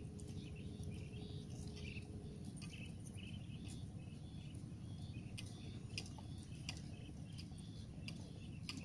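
Small birds chirping on and off, with a few sharp ticks, over a steady low rumble of outdoor background noise.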